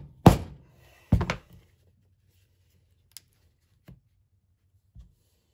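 A mallet striking a steel rivet setter twice, setting a rivet through the leather of an axe sheath on a small anvil, each strike a sharp knock. A few faint light clicks follow as the leather and rivet are handled.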